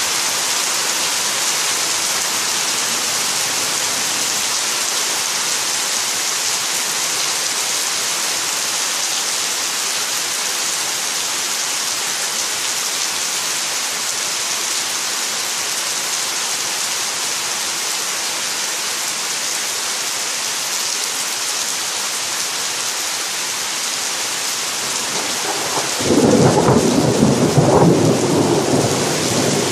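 Heavy rain falling on trees and ground with a steady hiss; near the end a loud clap of thunder breaks in suddenly and rumbles on.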